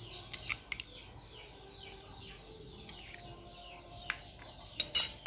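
A spoon tapping an egg's shell a few times in the first second to crack it, with a bird chirping over and over in the background, each chirp short and falling, about three a second. Near the end comes a sharp clatter, the loudest sound.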